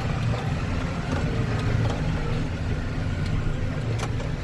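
A vehicle engine running with a steady low drone, with a few faint clicks and rattles over it.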